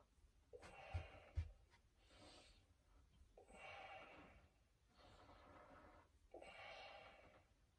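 Faint, rhythmic heavy breathing of a man exerting himself through resistance-band bar reps, about five breaths at roughly one every second and a half. Two soft low thumps about a second in.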